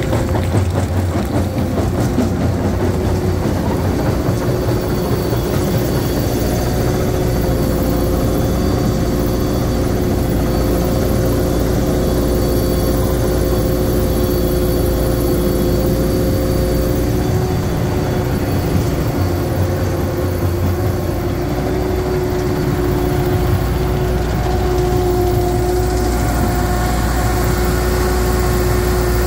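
Volvo diesel engine of a McCloskey J35 tracked jaw crusher running steadily, with a constant whine over the low engine rumble.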